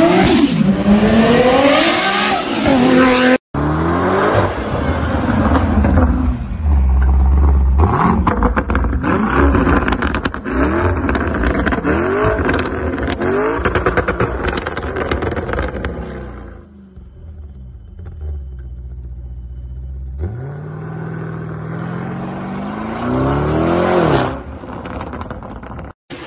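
Performance car engines revving in back-to-back clips. First a Toyota Supra mk4's straight-six revs up and down hard as it slides. After an abrupt cut, a Lamborghini Urus's twin-turbo V8 is revved repeatedly while standing. It drops back to a low, steady run for a few seconds, then revs again.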